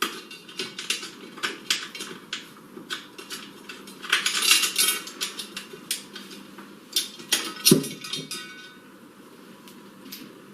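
Metal clicking and clinking of hand tools and bolts as a battery hold-down bracket is unbolted from a battery box, with a longer scraping rattle about four seconds in and a sharp knock near eight seconds.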